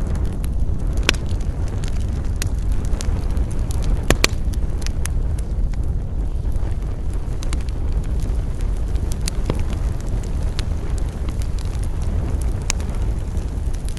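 Campfire burning: wood crackling with scattered sharp pops, the loudest about four seconds in, over a steady low rumble.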